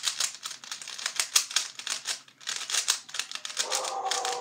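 Plastic Rubik's-style cube being twisted fast in the hands, its layers clicking and rattling in quick runs of snaps with a brief pause partway through. Near the end a steady tone joins the clicking.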